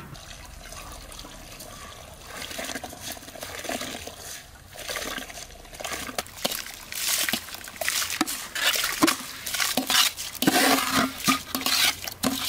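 Tap water running into an aluminium basin of rice being rinsed. About halfway through, the soaked rice and water are tipped into a pot of boiling water, with irregular, louder splashing.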